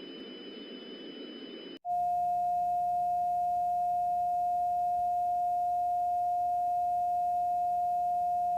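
A faint hiss with thin high whines, cut off after about two seconds by a single loud, steady electronic sine tone, a little below 1 kHz, that holds unchanged.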